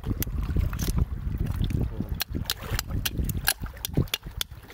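Iron rod scraping and knocking against a rock crusted with oyster shells in shallow water, giving many irregular sharp clicks and scrapes over a low, steady rumble.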